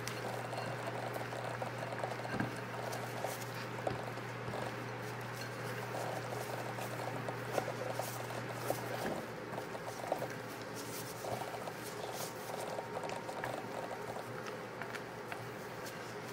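Silicone spatula folding and scraping thick macaron batter against a glass mixing bowl: wet, sticky squishing in irregular strokes with small clicks of the spatula on the glass. A steady low hum underneath stops about nine seconds in.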